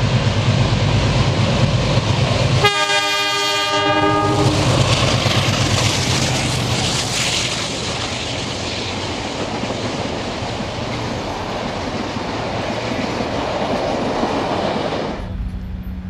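Pair of NSW 44 and 45 class ALCO diesel-electric locomotives working a train past close by: a low engine throb, then a multi-note horn blast about three seconds in lasting under two seconds. After the horn comes the loud rushing clatter of the locomotives and carriages going by, easing off gradually. The sound drops sharply near the end to a quieter, distant steady hum.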